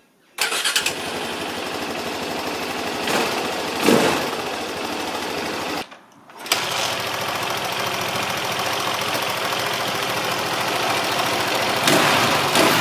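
2000 KTM 640 LC4's single-cylinder four-stroke engine running and sounding healthy, with brief throttle blips about three to four seconds in and again near the end. The sound breaks off for about half a second around six seconds in, then the engine runs again.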